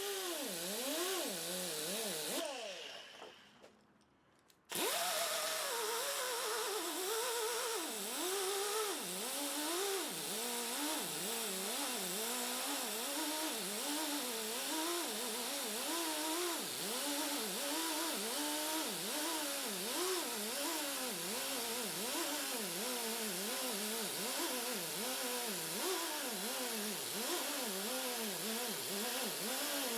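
Small power tool buffing guitar frets with jeweler's rouge. Its motor pitch dips and rises over and over, about once or twice a second, as it is worked along the frets. It stops about two and a half seconds in and starts again at about five seconds.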